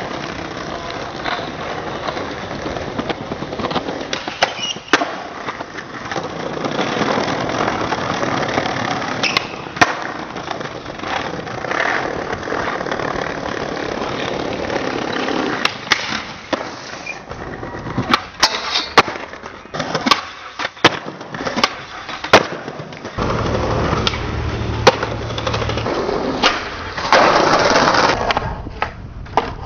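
Skateboard wheels rolling on pavement, broken by many sharp clacks of the board hitting the ground, thickest a little past the middle.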